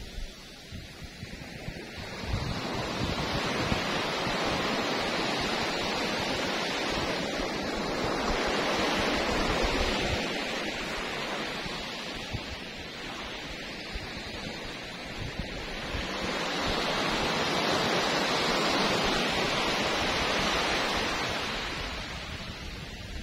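Sea waves breaking and washing up a sandy beach, the surf rising and falling in two long surges with a quieter spell between them.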